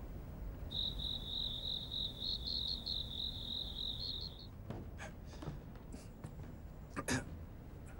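A cricket trilling steadily for a few seconds, then soft footsteps and knocks on stairs, with one louder knock near the end.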